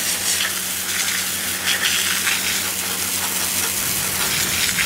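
Garden hose nozzle spraying a jet of water onto a crusted fishing rod and reel: a steady hiss of spray spattering on the rod and deck.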